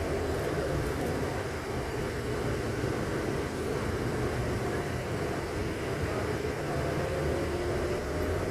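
Steady vehicle running noise: an even low rumble with a faint hum on top, unchanging throughout.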